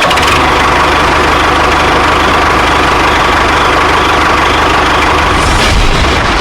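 A motor running steadily under load, a dense mechanical noise with a constant whine.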